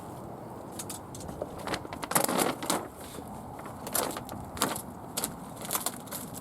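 Irregular crackling and crunching, about nine short bursts, as torn polythene sheeting and debris are pulled about and handled.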